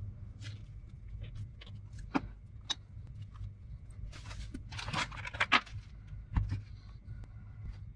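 Handling noise of a 1990s plastic laptop case being picked up, turned over and set down with gloved hands: scattered light clicks, taps and rustles, with a few sharper knocks about two and five seconds in, over a low steady hum.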